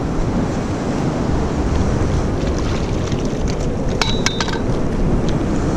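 Fast river water rushing and splashing over rocks, with the low rumble of wind on the microphone. A few sharp clicks come in quick succession about four seconds in.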